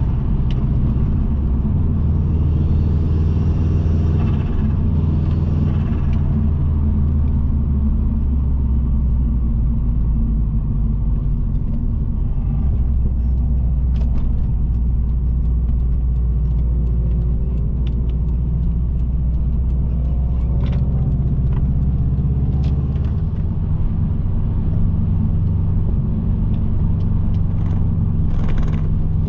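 Subaru Impreza WRX's turbocharged EJ20 boxer engine droning under way, heard from inside the cabin with road and tyre noise, its note shifting in pitch a couple of times as the driver works through the corners.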